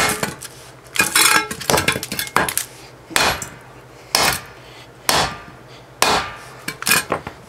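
A hammer striking the steel core of a microwave-oven transformer about once a second, roughly eight sharp blows. The blows crack the welds that join the core's two halves, which are nearly broken through.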